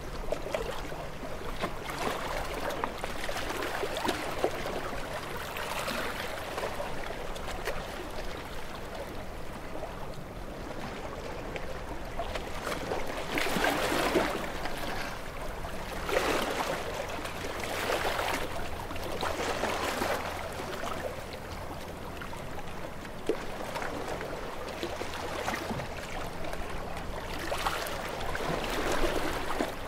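Sea waves washing in and splashing against the concrete tetrapods of a breakwater, surging every couple of seconds, with the strongest surges about halfway through.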